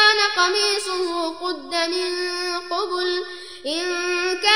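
A male reciter chanting the Quran in a melodic, drawn-out style, holding long vowels on a high, steady pitch, with brief breaks between phrases.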